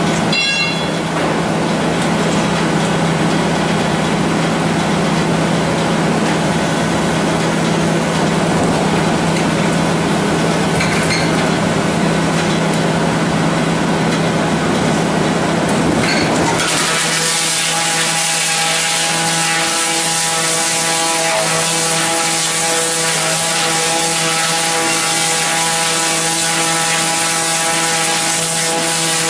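Log debarking and knot-removing machine running, with a rough, noisy working sound and a low steady hum. A little past halfway it changes suddenly to a steadier hum with several held tones.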